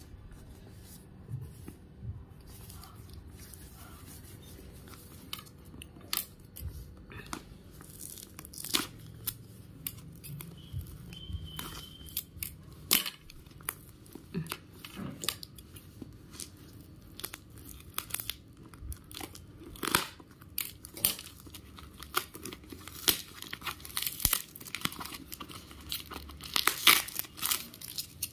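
A brown-paper parcel sealed with packing tape being torn open by hand: irregular tearing, crinkling and crackling of the paper and tape, sparse at first and much busier toward the end.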